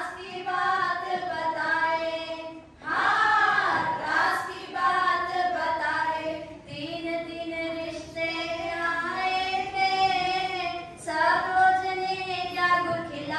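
A woman's high voice singing a melody, holding long, slightly wavering notes.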